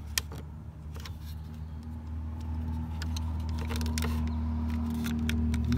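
Steady low vehicle-engine hum that grows slowly louder, with scattered light plastic clicks and rattles from handling the door lock switch and its connector.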